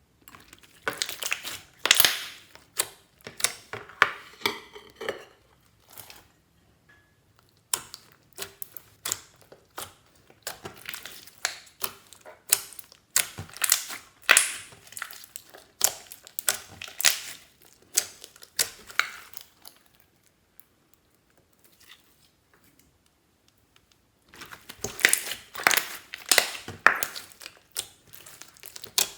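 Clear slime being squeezed and kneaded by hand, giving off bursts of sharp crackles and pops from trapped air, with two short pauses.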